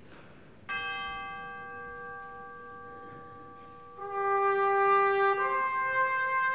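Music: a held chord enters just under a second in and slowly fades, then a trumpet comes in about four seconds in with a long note that steps up to a higher one.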